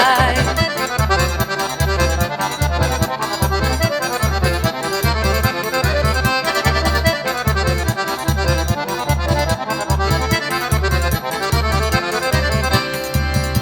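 Instrumental forró pé de serra: accordion playing the lead over a steady beat of zabumba bass drum and triangle.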